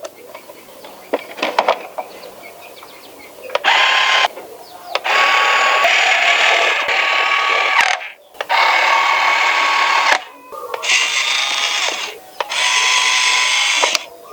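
Small electric screwdriver whirring in five bursts of one to three seconds each, a steady whine with each run, as screws are driven into the model kit. Light clicks of small parts being handled come first.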